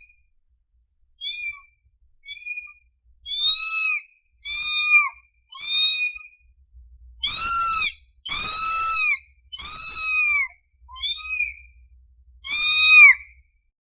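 A hungry kitten meowing for its mother: about ten high, arching meows in a row, each under a second, loudest in the middle stretch.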